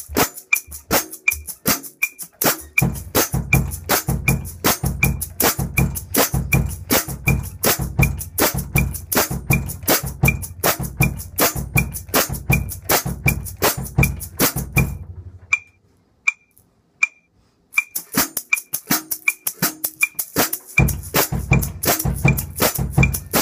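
Shaker stick shaken in a steady fast rhythm against a metronome click that ticks about twice a second, over a low pulsing beat. Around two-thirds of the way in the shaking stops for a couple of seconds, leaving only the click, then starts again.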